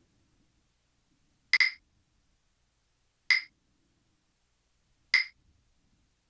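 Metronome clicking a very slow beat: three short, pinging clicks evenly spaced about 1.7 seconds apart.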